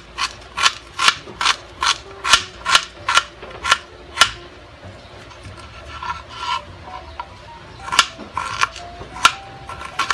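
Kitchen knife chopping ginger into thin strips on a plastic cutting board: a steady run of sharp taps, about two to three a second, for the first four seconds, then a softer pause and a few slower, scattered strokes near the end.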